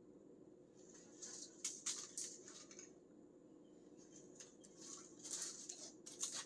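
Faint, irregular clicking and scraping of tools and metal hardware being handled, in two short flurries about a second in and again near the end.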